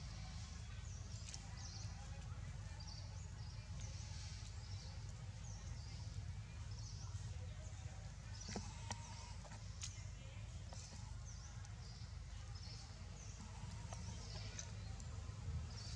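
Outdoor ambience: many short, high chirps scattered throughout over a steady low rumble, with a couple of sharp clicks about halfway through.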